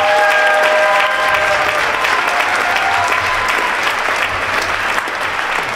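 Audience applauding loudly after a show choir performance ends, with sustained cheers and whoops riding over the clapping for the first couple of seconds.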